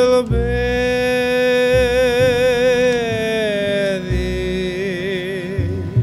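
Male voice singing a slow hymn, holding long notes with a wide vibrato that step down about three seconds in. Underneath are steady harmonium chords and plucked double bass notes every second or two.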